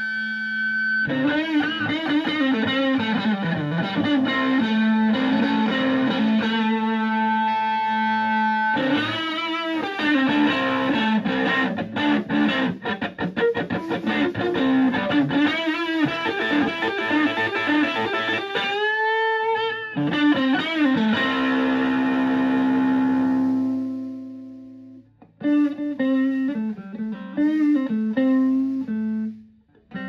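Stratocaster electric guitar played through a Tube Screamer-style overdrive pedal with a bass control into an overdriven Fender Twin Reverb-clone amp, with the guitar volume maxed: riffs and single notes, and a bent note with vibrato about two-thirds through. Near the end a held chord fades out, then the playing resumes with a cleaner tone as the guitar's volume knob is turned down.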